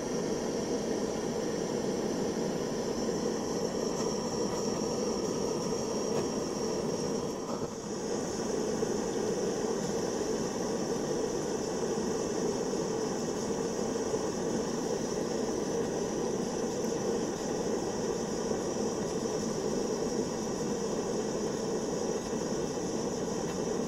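Handheld gas-canister blowtorch burning with a steady hiss as its flame melts wax out of a glass jar; the hiss dips briefly about seven and a half seconds in. The user thinks the canister is running low on gas.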